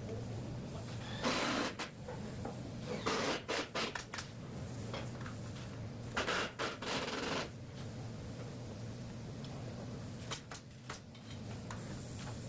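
Three short bursts of scraping and rubbing over a steady low hum, then a few light clicks about ten seconds in.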